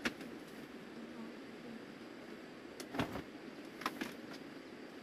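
A few light clicks and knocks from a person moving about and pulling on a jacket: one at the start, a pair about three seconds in, and another pair just before four seconds. Steady background hiss runs underneath.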